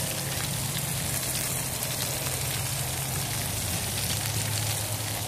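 Meat sizzling in an aluminium pan on a grill, a steady crackling hiss, with a low steady hum underneath.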